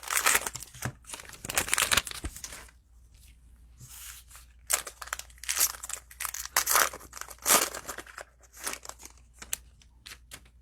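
A cellophane trading-card pack wrapper is torn open and crinkled in repeated rustling bursts. There is a quieter pause about three to four seconds in, then more crinkling.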